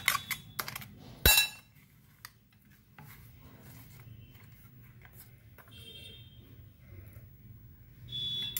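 A steel spoon knocking and scraping against a steel mixer-grinder jar and a glass bowl as ground almond-cashew powder is scooped out. A loud ringing metal clink comes about a second in, followed by softer scraping and light clinks.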